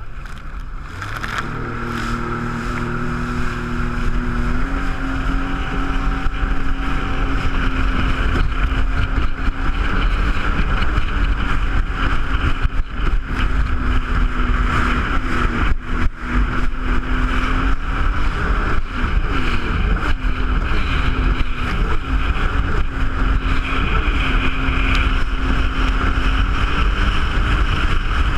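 Jet ski engine speeding up over the first few seconds, its pitch stepping up just before five seconds in, then running at a steady cruising pitch with small wobbles. A steady rushing noise lies under the engine throughout.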